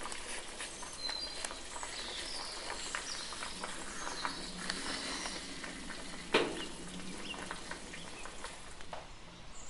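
Bacon-wrapped meat rolls sizzling in a baking tray in the oven, the fat spitting in a steady patter of small crackles, with one sharper pop a little past halfway.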